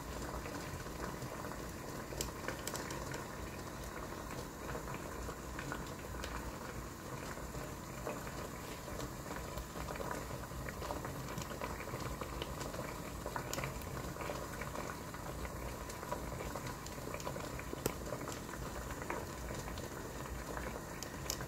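Water boiling steadily in a steamer pot: a continuous bubbling hiss with scattered small pops.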